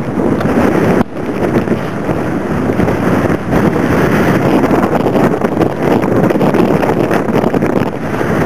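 Strong blizzard wind blowing hard and buffeting the microphone, a loud steady rush that dips suddenly about a second in.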